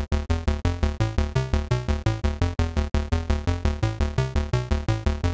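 Background music: short pitched chords over a deep bass in a fast, even pulse of about five a second.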